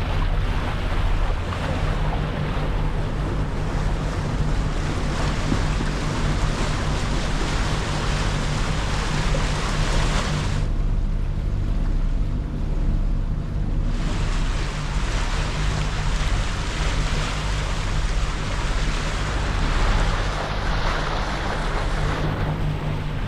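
A catamaran under way: its engine hums steadily beneath wind on the microphone and water rushing past the hulls. About halfway through, the wind and water noise drops away for about three seconds while the engine hum carries on.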